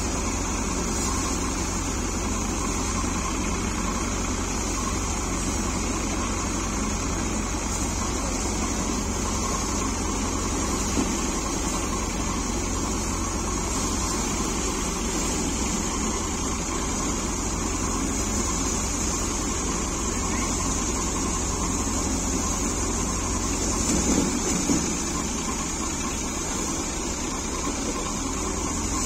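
Tractor-driven Neha paddy thresher running steadily under load as rice bundles are fed into it. Briefly louder for a moment near the end.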